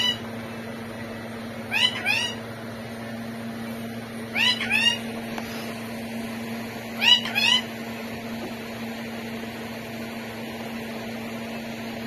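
Parrot calling in short two-note cries, a pair of arching notes repeated four times at intervals of about two and a half seconds, then falling silent. A steady low hum runs underneath.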